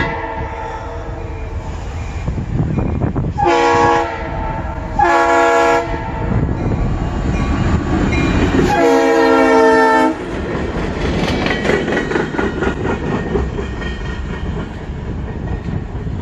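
Canadian National diesel locomotive No. 5743 passing close by with a freight train: its air horn sounds three blasts a few seconds in, the last the longest, over the engine's rumble and the rattle of wheels on the rails.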